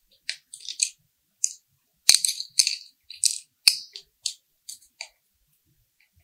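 A screwdriver turning a small machine screw into a plastic seat-post knob, making a string of short clicks and scrapes. Two sharper clicks come about two and three and a half seconds in, and the sounds stop about five seconds in.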